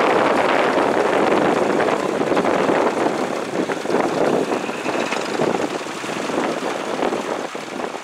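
Vintage Massey Ferguson tractor's engine running steadily as it pulls a plough, easing off a little near the end.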